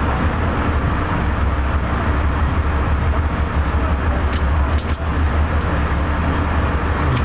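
Steady low rumble of an Amtrak passenger train heard from inside the coach as it rolls into the station, with a few faint clicks a little past the middle.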